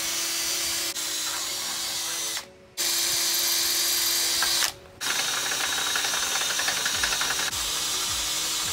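Cordless drill boring pilot holes into steel. The motor runs with a steady whine and stops briefly twice, about two and a half seconds in and again just before five seconds.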